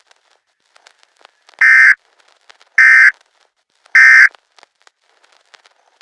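Emergency Alert System end-of-message tones: three short, loud, harsh digital data bursts about a second apart, the SAME 'NNNN' code that closes an EAS alert.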